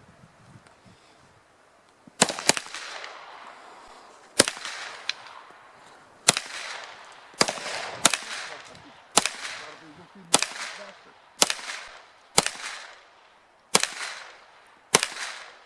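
Twelve gunshots fired one at a time, roughly a second apart after a near-quiet first two seconds, each followed by a short echoing tail. The first two shots come close together.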